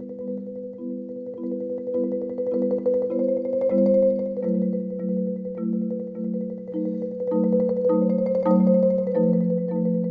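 Background music: short repeated chords, about two a second, over a steady held note.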